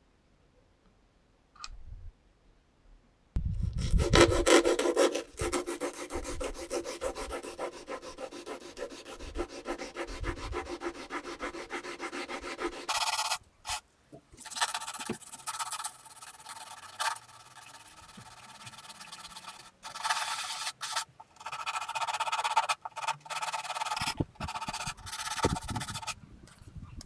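Sanding on the fiberglass of a boat dash: a rough, scratchy rubbing that starts about three seconds in and goes on in stop-start stretches with short pauses.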